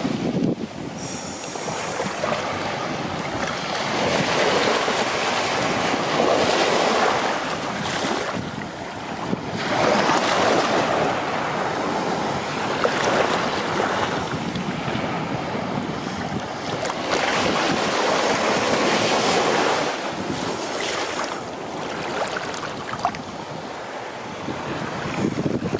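Ocean waves breaking and washing on the shore, the surf swelling and falling away every few seconds, with wind buffeting the microphone.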